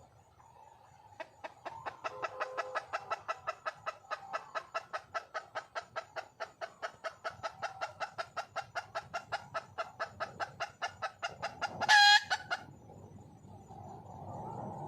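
A red junglefowl hen calling for a mate: a fast, even run of short clucks, about five a second, that goes on for about ten seconds, then one loud, high squawk near the end.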